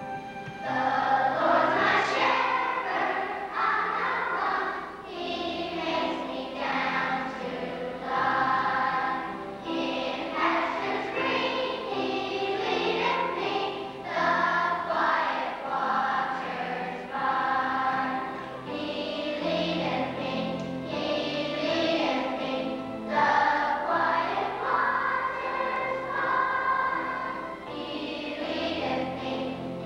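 Children's choir singing a song over instrumental backing music with a bass line; the voices come in about a second in.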